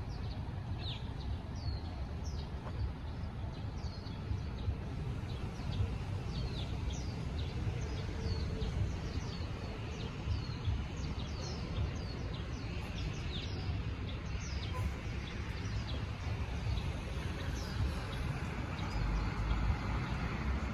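Small birds chirping repeatedly in short, high, downward-sweeping chirps over a steady low rumble of vehicles.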